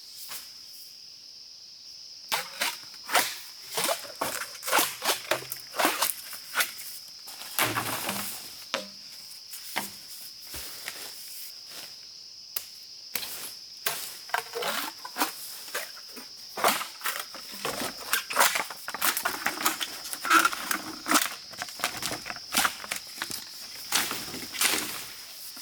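Insects keeping up a steady high drone, with many irregular sharp clicks and knocks starting about two seconds in.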